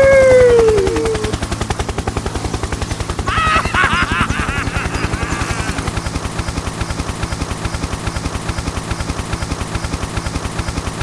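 Small engine of a miniature DIY tractor running with a rapid, even chugging. Over it, a falling pitched tone sounds at the start and a warbling pitched sound comes about three seconds in.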